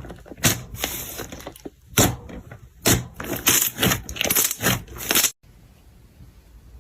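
Slime being squeezed and crushed by hand, giving a run of irregular crackling, popping bursts. The sound breaks off suddenly about five seconds in, leaving a much quieter stretch.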